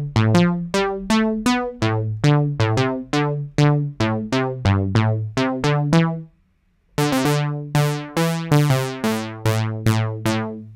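Moog Model D synthesizer app played from a MIDI keyboard: a quick line of short, low bass notes, about three or four a second, each with a sharp start and fast fade. The notes stop briefly about six seconds in, then go on with a brighter tone.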